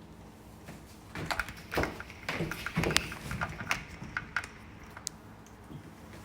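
Rustling and irregular light taps and clicks from a newly unpacked coat being handled, with a few sharper ticks.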